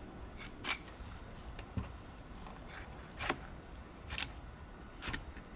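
A fillet knife cutting through a tilefish on a cleaning table: about half a dozen short, sharp scraping sounds at irregular intervals, over a low steady background rumble.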